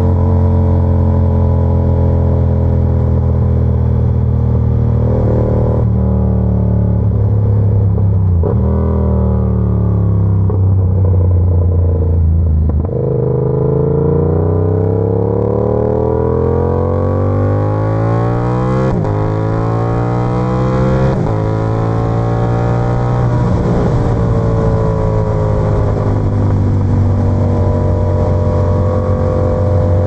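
Yamaha YZF-R7's 689 cc parallel-twin through an SC-Project exhaust, ridden on the road: it slows on engine braking with stepped downshifts in the first third, then accelerates hard, pitch climbing through a couple of upshifts, and settles into a steady cruise near the end.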